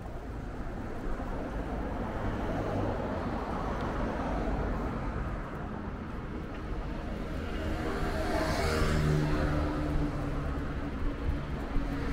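Street traffic noise, with a motor vehicle passing close about eight seconds in; its engine hum carries on for a couple of seconds after.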